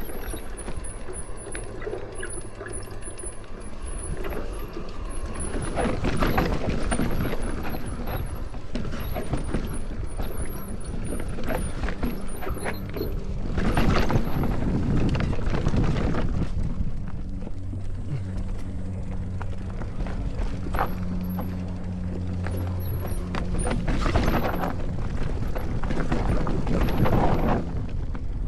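Electric mountain bike riding down a rough dirt singletrack: tyre roar on dirt and rocks with the bike rattling over bumps, swelling louder through rougher stretches several times.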